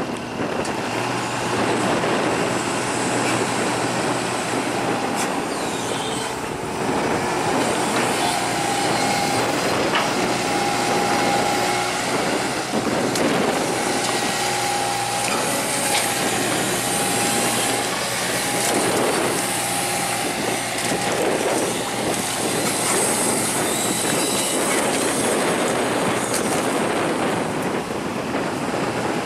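Heavy tracked diesel machinery working under load in mud, as it pulls a bogged combine harvester free: steady engine hum, clanking and squealing of tracks, and an on-and-off whine through the middle.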